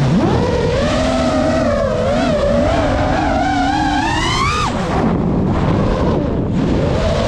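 GEPRC Mark 5 FPV quadcopter's brushless motors whining, the pitch rising and falling with the throttle. About four and a half seconds in the pitch drops sharply and the whine thins to a rushing noise for a second or two, then climbs again as the throttle comes back up.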